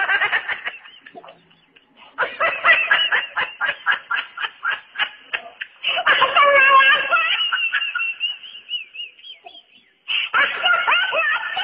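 A man laughing loudly: a run of rapid 'ha' bursts, then a long held high-pitched laugh, a short pause, and another fit of laughter near the end.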